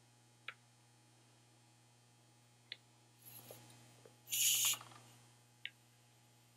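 Light clicks of hand tools being handled, and about four seconds in a short burst of hiss from a compressed-air blow gun, given a brief puff before blowing out freshly reamed valve guides.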